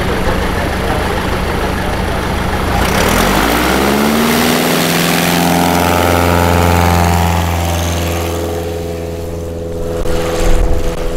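A Super Cub light plane's piston engine and propeller idle, then about three seconds in run up to full power for the takeoff roll, holding a steady high pitch before fading as the plane draws away down the runway. A few low thumps sound near the end.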